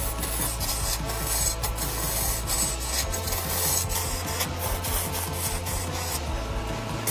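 A hand-held turning tool cutting into a large log spinning on a wood lathe, giving a steady rasping scrape with short irregular scratches as shavings tear off, over a low steady hum.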